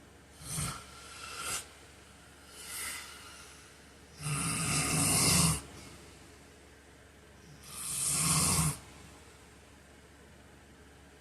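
A man snoring in his sleep. Three short, fainter snores come in the first three seconds. Two long, loud snores follow, about four and eight seconds in, the first of them the loudest; after that only a faint hiss remains.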